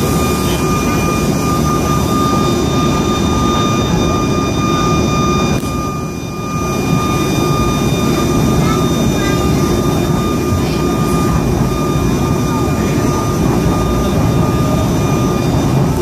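Cabin noise of the C-27J Spartan's two Rolls-Royce AE 2100 turboprop engines running while the aircraft taxis: a loud steady drone with a constant high whine over it, easing slightly for a moment about six seconds in.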